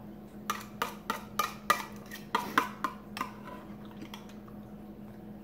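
A metal fork clinking and scraping against a tin tuna can as drained tuna is scooped out: about nine quick taps over some three seconds, a few with a short metallic ring.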